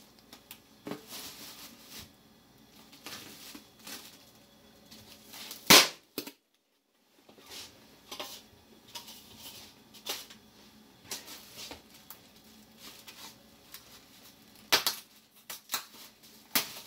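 Kitchen food-preparation handling noises: scattered rustling and light clicks, with one loud sharp knock about six seconds in, a brief cut to silence just after, and a couple more sharp clicks near the end.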